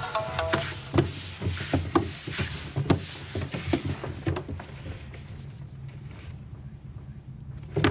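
Scattered light clicks, taps and rubbing, growing sparser and quieter after about four seconds, with a ringing tone dying away in the first second.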